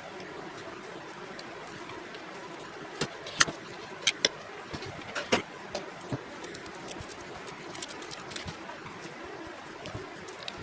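A cluster of sharp clicks and taps, a dozen or so over about three seconds with the loudest a few seconds in, from the plastic and metal parts of an angle grinder being handled and fitted back together. A steady low background hum runs underneath.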